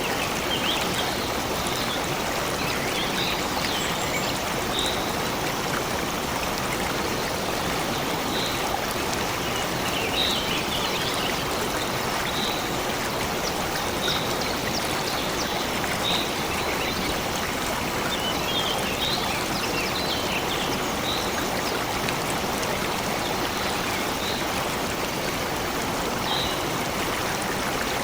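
Steady rush of a flowing stream, with a bird giving short high chirps that recur every second or two.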